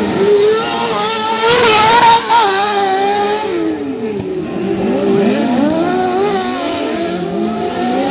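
Several kartcross cars' high-revving engines racing on a dirt track, their pitches rising and falling as they accelerate and shift, with several engines heard at once. The loudest moment comes about two seconds in.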